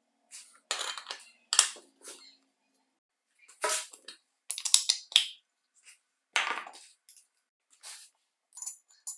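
Cast aluminium motor and gear housings of a Makita 5601N circular saw being handled and fitted together: a series of separate metallic clinks and clatters with short silences between, the loudest at about one and a half and four and a half seconds in.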